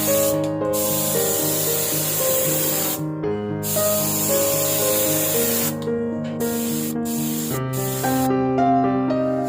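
Spray paint hissing in a series of passes, the hiss stopping briefly several times between them, over background music.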